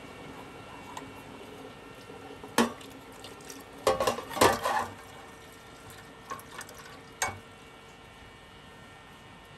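Dishes and cutlery clinking and knocking in a sink over a steady hiss. There is a sharp clink about two and a half seconds in, a cluster of clatters around four to five seconds, and a last clink about seven seconds in.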